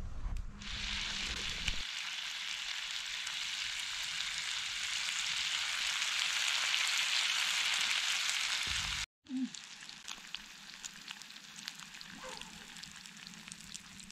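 Bacon grease sizzling in a cast iron pan over a campfire: a dense, steady frying hiss that grows a little louder. It cuts off about nine seconds in and comes back quieter, with scattered pops.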